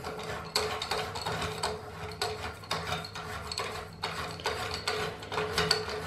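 Toilet cistern push-button flush being unscrewed by hand: irregular clicking and ratcheting as the threaded button is turned, about two or three clicks a second.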